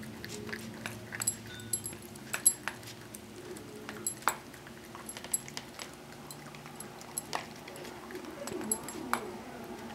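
A puppy eating from a food bowl: irregular clicks and clinks as her collar tags knock against the bowl, along with her eating noises.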